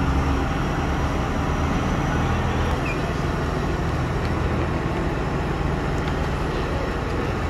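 An engine running steadily, a low drone that eases slightly a couple of seconds in.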